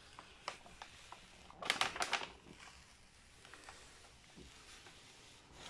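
Crinkling and crackling of the protective paper being peeled back from an adhesive diamond painting canvas: a few light crackles, then a louder cluster about two seconds in.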